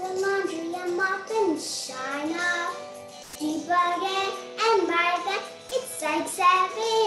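A young girl singing a song in phrases, holding some notes and gliding between others, with short breaks for breath.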